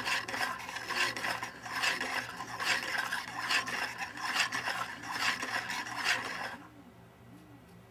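3D-printed plastic quick-return mechanism being turned by hand: the wheel's offset pin slides in the slotted link and the pinion segment drives the rack rod back and forth through its guides, a rasping plastic rub that swells about once a second. It stops about six and a half seconds in.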